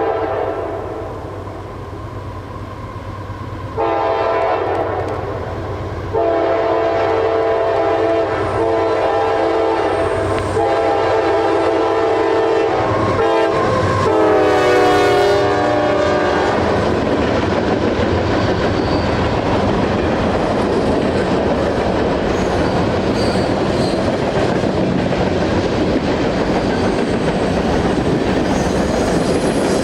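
Freight train led by a CSX CM44AH diesel locomotive sounding its multi-chime horn in long blasts, the chord dropping in pitch about halfway through as the locomotive goes by. Then the steady rumble and clickety-clack of the long train's cars rolling past.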